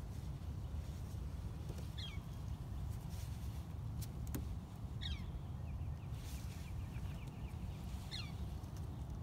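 A bird calls three times, about three seconds apart, each a short falling call, over a steady low rumble. Two sharp clicks come about four seconds in.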